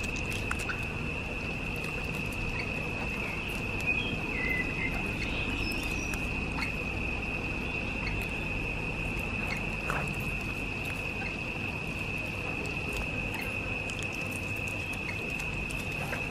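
Dog eating fried rice from a plastic takeaway container, with scattered soft chewing and lapping clicks. A steady high-pitched whine runs underneath.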